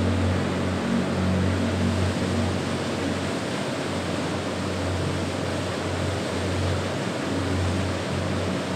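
Steady rushing roar of a distant waterfall, with a soft, low music pad swelling and fading underneath.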